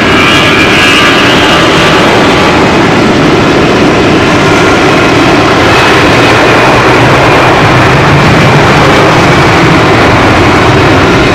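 Boeing 747-400 jet engines running during engine start, a steady loud noise with a high whine that fades about two seconds in.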